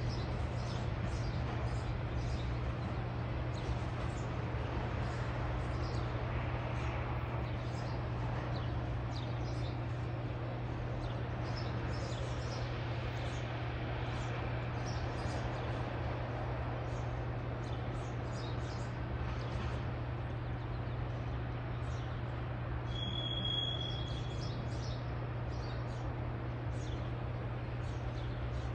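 Low, steady rumble of a double-stack intermodal freight train's last cars rolling away, with songbirds chirping over it throughout and one short high clear note about two-thirds of the way in.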